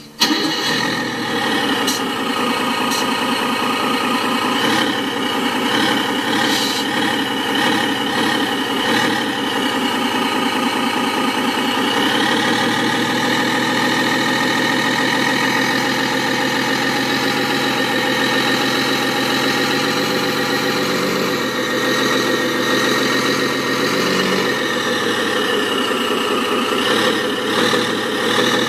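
RC model pickup truck's electronic engine-sound unit, played through its small speaker, starting up and then idling steadily with a simulated truck-engine note.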